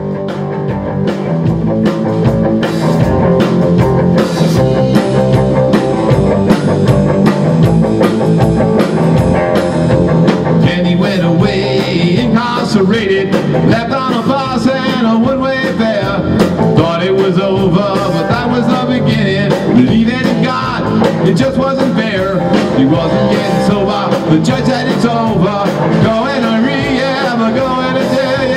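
Rock band playing live: a Tama drum kit, electric bass and electric guitar together, with bending guitar notes in the second half.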